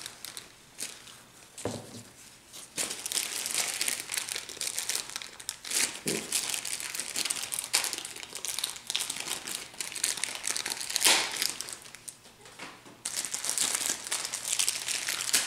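Thin plastic wrapping crinkling and rustling as it is worked off a plush doll's hands, in long stretches with brief lulls.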